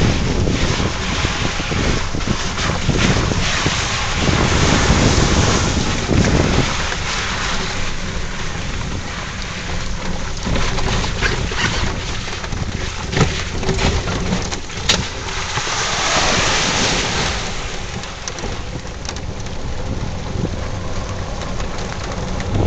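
Honda ATV being ridden through floodwater and mud, its engine largely buried under heavy wind rumble on the microphone and a steady wash of water noise, with a few sharp knocks.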